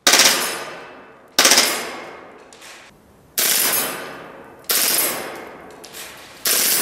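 WE gas blowback airsoft Glock pistol firing five short rapid bursts, each a quick rattle of shots that rings on in the echo of a large concrete hall. Faint ticks in the gaps between bursts.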